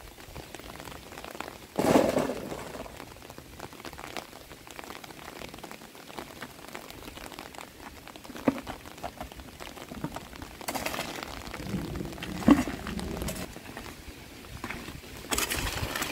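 Dry leaves and soil crackling and rustling as stones and clods are picked up by hand and dropped into a plastic bucket, with a few louder knocks and thuds. Near the end a hoe scrapes into the earth.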